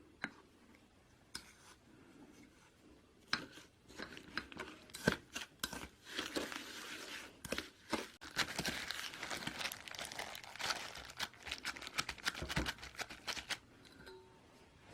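Crinkling and tearing of packaging, with sharp clicks. It starts sparse and becomes dense and continuous from about four seconds in, then stops shortly before the end.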